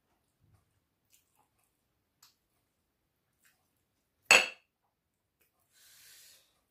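A single sharp clink of a plate, knocked as a hand picks food from it, about four seconds in, among faint small ticks of eating. A faint short rustle follows near the end.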